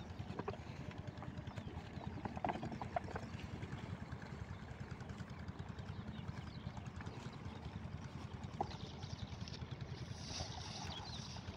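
An 8 hp single-cylinder diesel pumpset engine running steadily under load with a rapid, even beat, driving an irrigation water pump.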